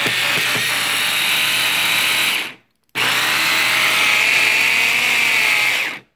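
Electric mini chopper's motor running at full speed, chopping onion, green chillies, garlic, ginger and spices into a paste. It runs for about two and a half seconds, stops briefly, then runs again for about three more seconds before cutting off.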